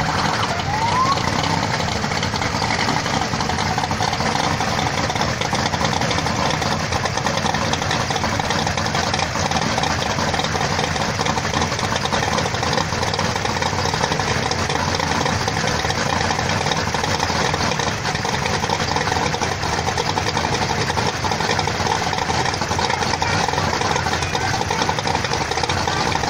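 Hot rod roadster's engine idling steadily and loudly, with other car engines running close by.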